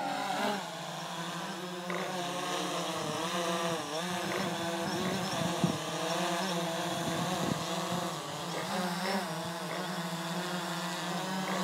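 Quadcopter drone's propellers buzzing as it hovers close by, the pitch wavering up and down as the motors adjust.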